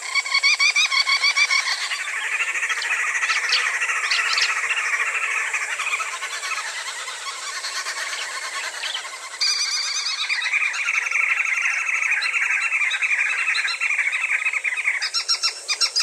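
A flock of green wood hoopoes calling together in a continuous, rapid chattering chorus, a little louder from about nine seconds in.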